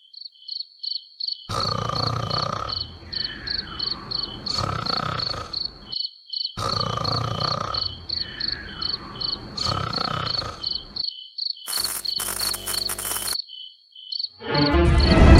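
Regular high-pitched chirping, about three chirps a second, like a cricket, over a fuller sound that plays twice the same way. A short burst of buzzing, glitchy noise comes about twelve seconds in, and music starts near the end.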